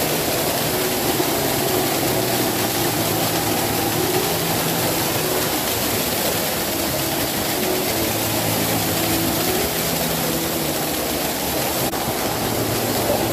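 A small waterfall pouring down rock and onto a person standing beneath it: a loud, steady rush of falling water close to the microphone.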